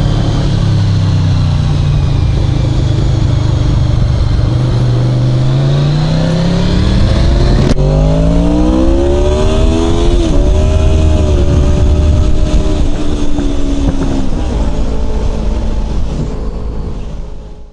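Motorcycle engine under wind noise, running steadily and then rising in pitch as it accelerates from about six seconds in, with a short dip about ten seconds in before it holds. The sound fades out near the end.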